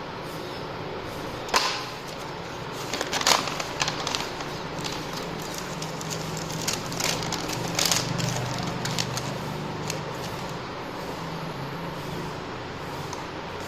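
Steady background hiss with a few sharp clicks and short rustles, the loudest about one and a half and three seconds in, plus a faint low hum in the middle.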